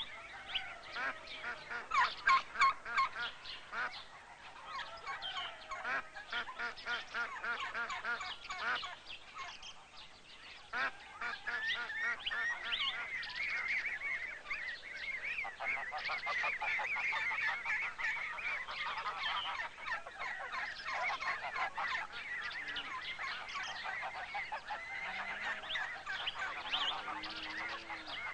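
A flock of geese honking, many short calls overlapping in a steady clamour, loudest about two seconds in.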